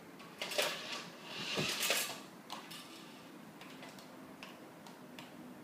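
Sparse sharp plastic clicks from a toy car's handheld remote control being fiddled with. A louder rustling scuffle comes about half a second to two seconds in.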